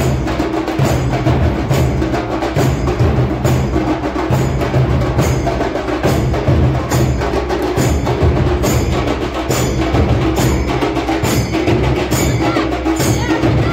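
Procession drum band of large metal-shelled bass drums and smaller drums beaten loudly in a steady rhythm, with sharp high strikes over a heavy low beat.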